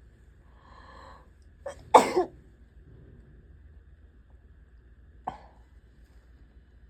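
A person with a cold sneezing: a faint breathy build-up, then one loud, explosive sneeze about two seconds in. A second, much shorter and quieter burst follows about three seconds later.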